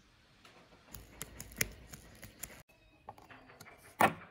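Small clicks and taps of a precision screwdriver and small electronic parts being handled, a quick run of them for a second or two, then one louder sharp knock near the end.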